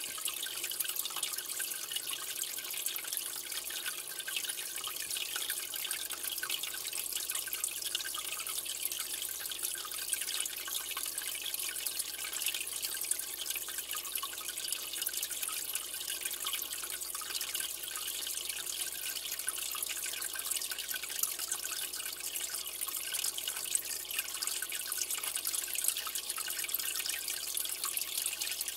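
Steady trickling and splashing of aquarium water, a dense fizzy hiss with many tiny drips and ticks and no change over time.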